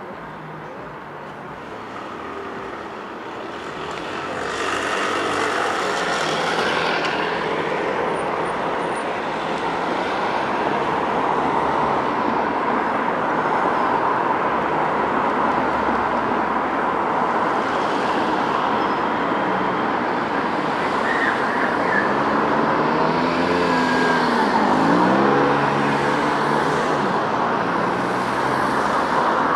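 Road traffic: a steady rush of passing cars, with louder vehicles going by about five seconds in and again late on, when an engine note dips and rises in pitch.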